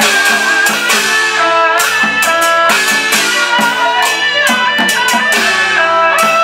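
Taiwanese Taoist ritual percussion ensemble: small drums beaten in quick strokes and hanging gongs struck and ringing with a sliding pitch, over a held melody line from another instrument.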